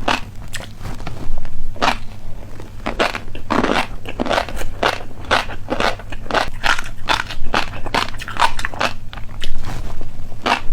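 A person chewing a hard, crunchy snack: a dense, irregular run of loud, crisp crunches, several a second.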